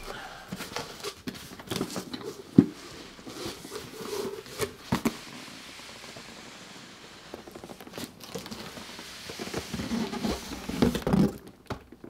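A large cardboard shipping carton being handled: cardboard and packing pieces rustling and scraping, with scattered sharp knocks, the loudest about two and a half seconds in. Near the end the handling gets busier and louder as the inner product box is slid out of the carton.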